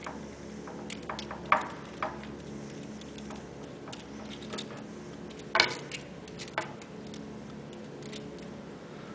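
Scattered light clicks and taps of a faucet's braided supply hose and its metal and plastic fittings being unscrewed and handled, with the sharpest knock about five and a half seconds in, over a steady low hum.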